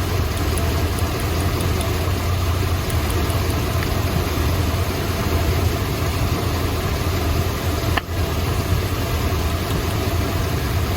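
The Chrysler 440 V8 of a 1972 Imperial idling rough and shaking with a misfire, while spark plug wires are pulled one at a time to find the dead cylinder. A short sharp break about eight seconds in.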